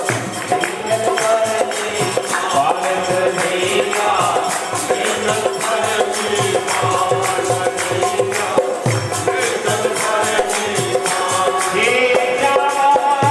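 Himachali devotional bhajan-kirtan music: held melodic notes over a steady, evenly paced jingling percussion beat.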